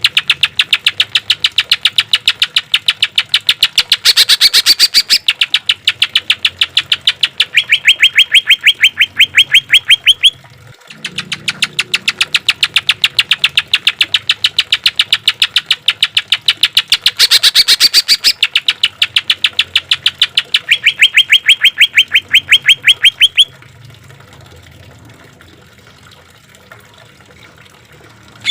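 Cucak ijo (green leafbird) singing rapid-fire 'tembakan' trills: long runs of sharp notes repeated about ten times a second, two runs in all, the second beginning about eleven seconds in, each with a louder, harsher stretch partway through. The song stops about five seconds before the end.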